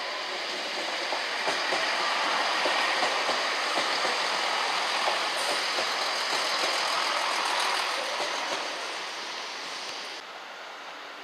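A train passing through at speed, its wheel and rail noise building to a peak and fading away, with many fine clicks running through it. The sound drops abruptly about ten seconds in.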